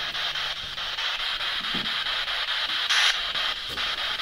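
Spirit box sweeping through radio frequencies: a steady hiss of static chopped in a fast, even rhythm, with a short louder burst of static about three seconds in.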